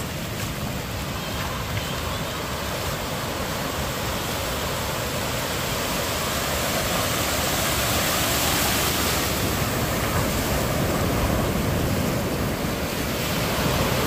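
Ocean surf breaking and washing up over the sand in a steady rush, swelling a little around the middle.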